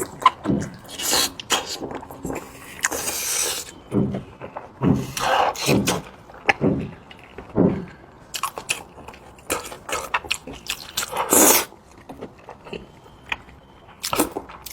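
Close-miked eating sounds: chewing and smacking on braised monkfish, with irregular short mouth noises and a few longer, louder noisy bursts, the loudest near the end.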